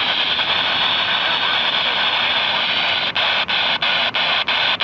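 Weather radio receiver giving a steady loud static hiss. About three seconds in, the hiss starts to break up in brief, regular dropouts, roughly three a second.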